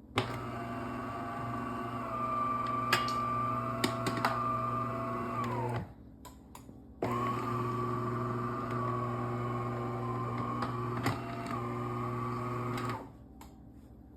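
DeLonghi Magnifica S espresso machine running its power-on cycle: a steady motor-like hum that starts with a click, sags in pitch and stops after about six seconds, then starts again for about six more seconds, with a few light clicks along the way.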